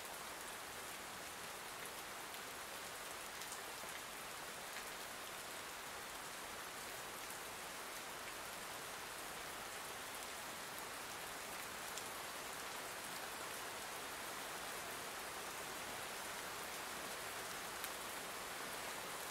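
Soft, steady rain falling: an even hiss with a few faint drop ticks.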